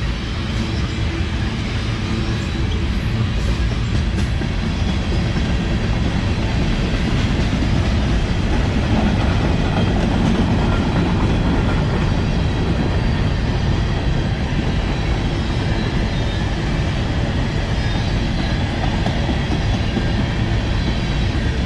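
Freight train's cars rolling past at close range: a loud, steady rumble of steel wheels on the rails.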